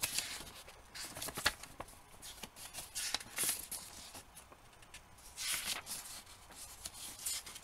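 Pages of a small paper booklet being flipped through by hand: irregular paper rustles and flicks, loudest about three and a half and five and a half seconds in.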